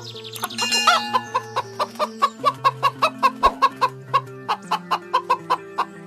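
Chicken clucking in a fast, even series of short calls, about four a second, over background music with held low chords.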